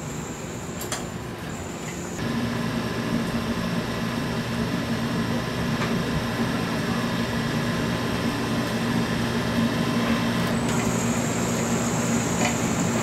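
Steady hum of electric machinery, with several steady tones over a constant noise, stepping up in level about two seconds in.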